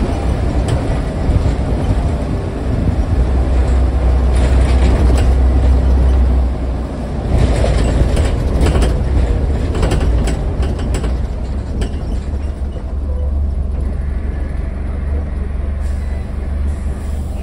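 Interior of a Scania N94UD double-decker bus on the move: the five-cylinder diesel engine gives a steady low drone that swells, dips briefly about six and a half seconds in, then picks up again. Interior panels and fittings rattle and click, most busily a few seconds after the dip.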